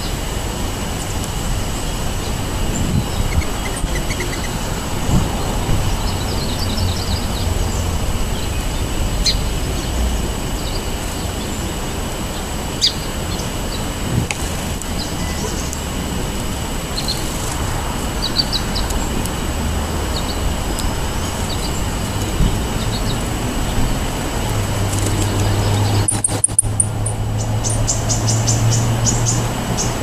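Steady rumble of road traffic, with an engine hum swelling in the last few seconds. Small songbirds give a few short runs of chirps, the quickest near the end.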